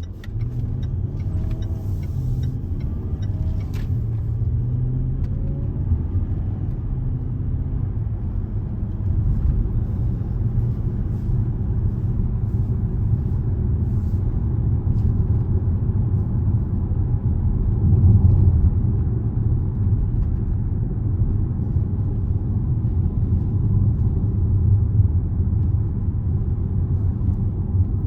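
Steady low road and engine rumble inside the cabin of a moving Range Rover, growing a little louder about a third of the way in.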